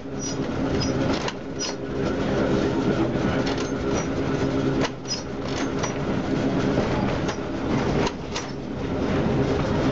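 Vintage electric trolley car running along the track, heard from inside the car: a steady hum from the motors, with irregular clicks and knocks from the wheels and a few brief high squeaks.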